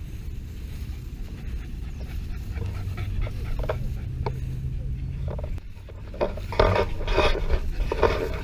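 Dogs panting close to the microphone as they run through long grass, over a low rumble of wind and handling. A faint low hum runs through the middle, and the panting grows loud and quick from about six seconds in as the dogs reach the camera.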